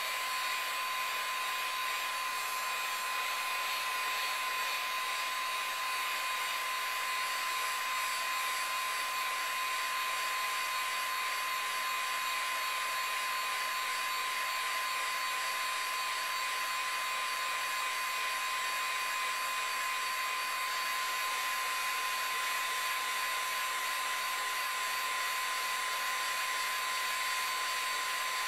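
Heat gun running steadily, blowing hot air with a constant whine, during the reflow of a PS3 motherboard's GPU and CPU solder for a yellow-light-of-death repair.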